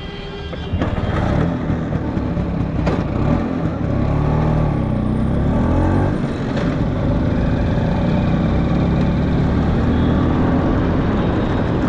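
LML NV scooter's two-stroke engine pulling away and accelerating, its pitch rising and falling through the gear changes, then running steadily at cruising speed.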